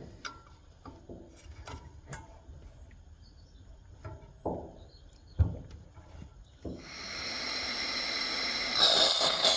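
A few light metallic clicks and knocks of handling, then about seven seconds in the Swiss army petrol stove's burner catches with a hiss of flame that swells and grows louder near the end.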